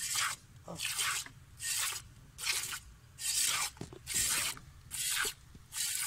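Milk squirting into a metal bucket as a water buffalo is milked by hand: a hissing spurt with each pull on the teat, in an even rhythm of about one every 0.8 seconds.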